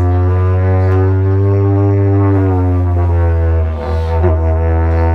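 Slide didjeridu played live: one continuous low drone whose tone colour sweeps slowly up and down, with a brief dip and stutter a little under four seconds in.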